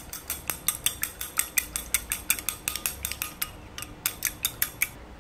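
Eggs being beaten in a glass bowl, the utensil clicking against the glass at about five strokes a second, with a short pause about three and a half seconds in and stopping near the end.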